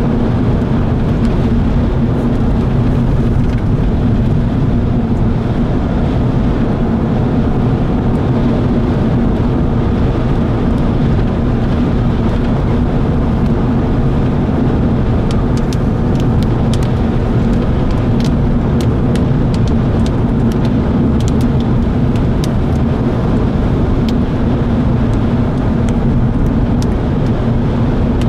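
Steady rumble and hum of a vehicle running. From about halfway through, scattered sharp ticks sound over it.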